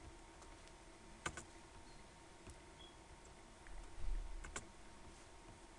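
A few sharp computer mouse clicks, spaced out, over faint room hiss, with a brief low thump about four seconds in.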